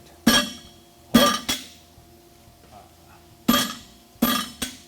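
Hammer blows on a steel horseshoe bar over an anvil: six ringing metallic strikes in two groups of three, the groups about two seconds apart.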